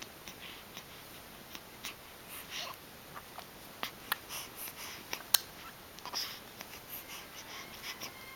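Newborn baby's soft breathing and sniffles with small mouth clicks, and scattered sharp clicks; the loudest click comes about five seconds in.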